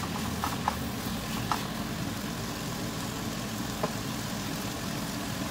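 Steady low rumble of a kitchen stove while a stir-fry cooks on low heat, with a few light clicks of a spatula against the pan.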